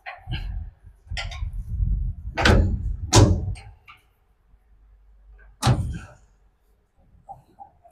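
Handling noise from working on the cable termination: low rumbling with a few sharp knocks, the loudest about two and a half, three and nearly six seconds in.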